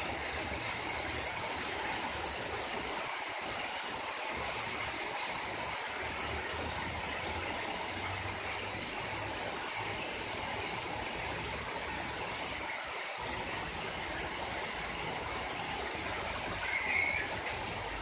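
Heavy rain pouring onto wet paving, a steady even hiss of falling and splashing water. A brief higher-pitched sound rises above it near the end.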